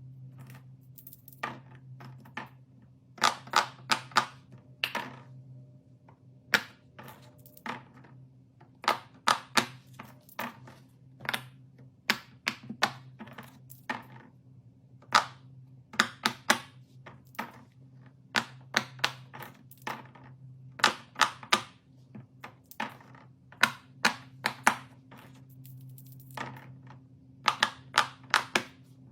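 Bubbles of a silicone pop-it fidget toy being pressed: sharp pops in quick runs of several at a time, over a faint steady hum.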